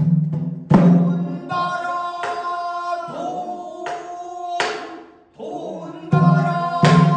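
A man singing pansori in long, held, wavering phrases, with several sharp percussive strikes marking the phrases.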